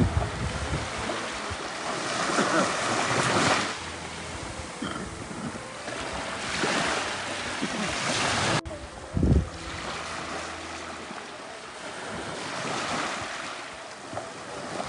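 Sea waves washing up on the shore, the surf swelling and fading about every five seconds, with gusts of wind buffeting the microphone.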